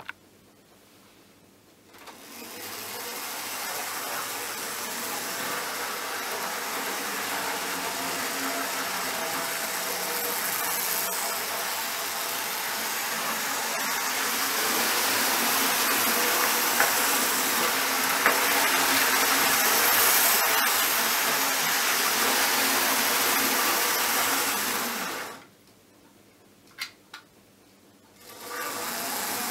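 Hornby HST 125 OO-gauge model train's electric motor whirring and its wheels running on the track, building up about two seconds in. It cuts out suddenly a few seconds before the end, with a couple of clicks in the gap, then starts whirring again.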